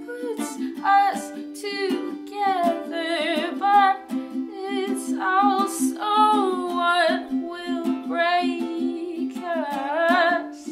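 A woman singing a slow song with a wavering vibrato, accompanied by a small acoustic string instrument picked in a steady, repeating pattern.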